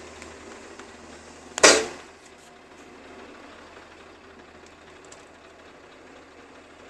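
Bobcat 5-ton excavator working as a timber harvester, its engine running steadily. About one and a half seconds in comes a single short, loud, sharp burst that fades quickly, as the harvester head cuts through and fells the tree it is gripping.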